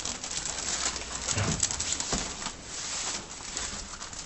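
Three-week-old puppies scrabbling about on sheets of newspaper, the paper rustling and crinkling in quick irregular bursts. A soft, low puppy grunt comes about a second and a half in.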